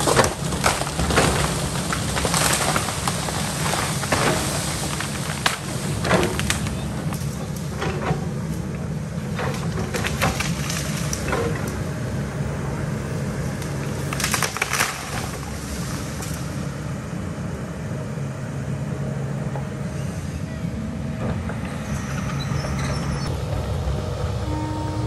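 Kobelco excavator's diesel engine running steadily, with a string of sharp knocks and scrapes as it works the hillside dirt and rock, most of them in the first several seconds and a few more near the middle.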